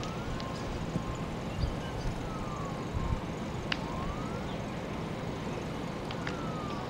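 Emergency vehicle siren wailing faintly, its pitch slowly rising and falling, over a steady low rumble of outdoor noise; one sharp click a little past halfway.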